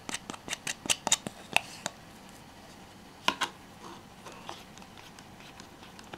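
Hard plastic clicking and tapping: a plastic stirring stick and measuring cup knocking against a clear plastic cup while two-part squishy liquid is mixed. A quick run of sharp clicks comes first, then one louder click a little after three seconds and a few faint ticks.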